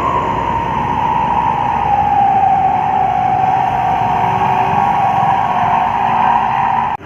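Heavy road vehicle running up a grade, with engine and road noise under a steady high whine that slowly drops in pitch. The sound cuts off suddenly near the end.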